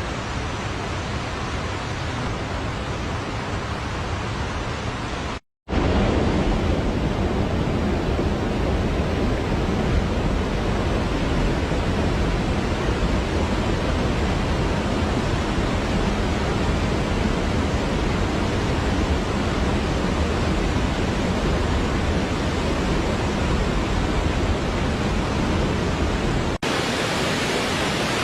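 Waterfall: a steady rush of falling water. It cuts out for an instant about five seconds in and returns louder and deeper, then turns thinner and less deep near the end.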